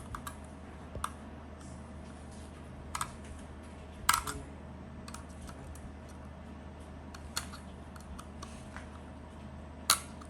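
Scattered sharp clicks and taps of small plastic and metal parts being handled as a laptop's hard drive is taken out and swapped for an SSD, with the loudest clicks about four seconds in and near the end, over a faint steady hum.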